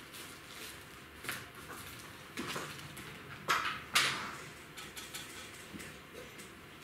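A few short scrapes and clicks of small tools handled at a fly-tying vise, the loudest two coming about three and a half and four seconds in.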